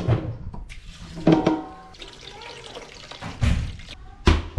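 Tap water running into a stainless steel stockpot in a kitchen sink, then the heavy pot thunks down twice near the end as it is moved onto the stovetop.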